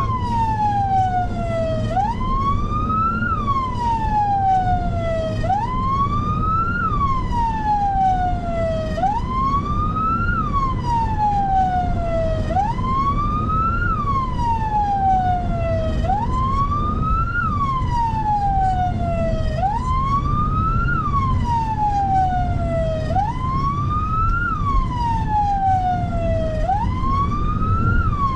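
Ambulance siren on a wail cycle, each rising quickly and then falling slowly, repeating about every three and a half seconds, over a steady low vehicle rumble.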